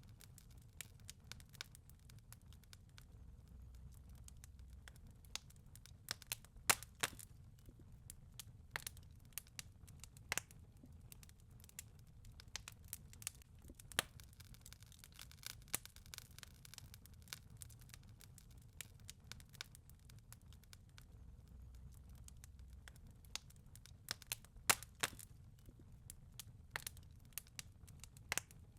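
Wood fire crackling in a fireplace: irregular sharp pops and snaps over a low rumble.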